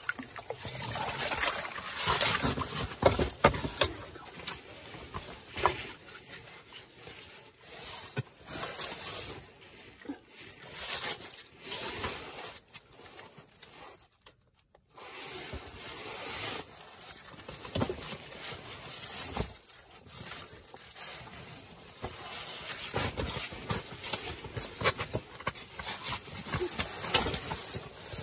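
Irregular rustling, scraping and knocks as a freshly landed whitefish is handled on the ice, with a short break in the sound about halfway through.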